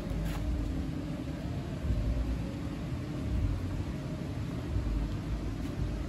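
Low, uneven rumble with a faint steady hum underneath.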